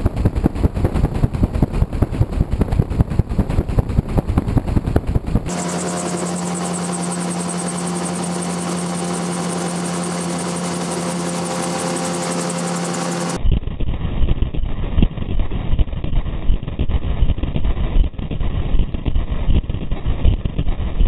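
Wind rushing and buffeting over an MTO Sport gyrocopter's rotor blade, heard from a camera fixed to the blade, with a rapid pulsing. For several seconds in the middle it switches to the steady, even drone of the gyrocopter's engine, then returns to the rotor-blade wind noise.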